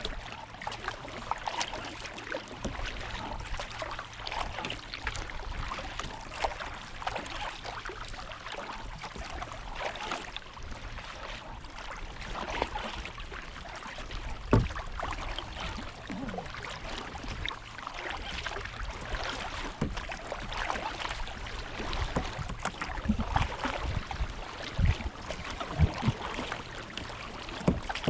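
Water sloshing and lapping against a kayak hull at sea, with many small splashy ticks and occasional low thumps.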